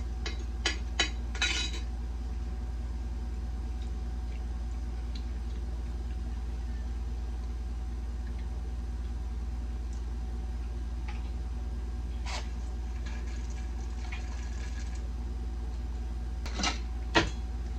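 Utensils clinking against dishes: several sharp clinks in the first second and a half, a few more near the end, over a steady low hum.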